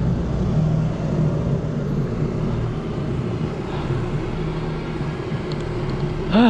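Road traffic heard from a bicycle: a motor vehicle engine running steadily close by, over road and wind noise. Just before the end comes a short, loud sound rising in pitch.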